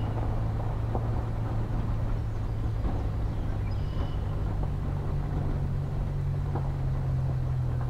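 Vehicle engine running steadily at low revs while driving slowly on a gravel dirt road, with tyres crunching on gravel and occasional small stone knocks. The engine note rises a little about four seconds in.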